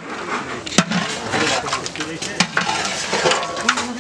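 A long metal spatula stirring chicken in thick gravy in a large aluminium cooking pot, scraping through the thick curry over a steady sizzle, with sharp knocks of the spatula against the pot about a second in and again about two and a half seconds in.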